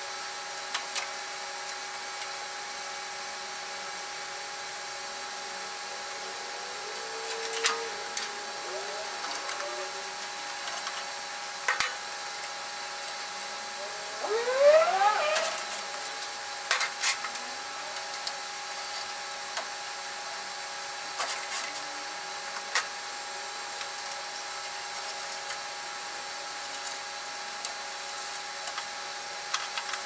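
Scattered metallic clicks and knocks of a screwdriver and sheet-metal covers being taken off inside a mainframe cabinet, with a short metal scrape that rises in pitch about halfway through. A steady hum runs underneath.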